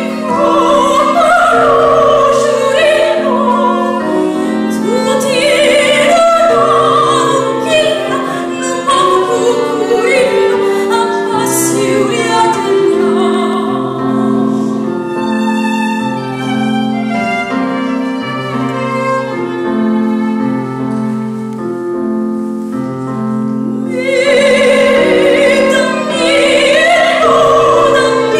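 Female soprano singing in operatic style with wide vibrato, over a small string ensemble of violin and cello holding sustained notes. About midway the voice fades back and the strings carry the music, then the voice returns strongly near the end.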